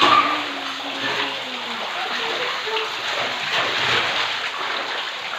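Rain pouring down onto a wet tiled floor, with splashing as a child slides and rolls through the shallow water.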